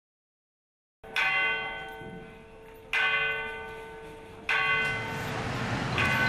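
A bell struck four times, starting about a second in, roughly once every one and a half seconds, each stroke ringing out and fading before the next.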